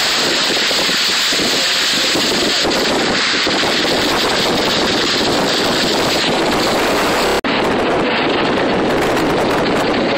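Wind rushing over the microphone through an open car window, with the car's tyres hissing and splashing through flood water on the road. The sound cuts out for an instant about seven seconds in.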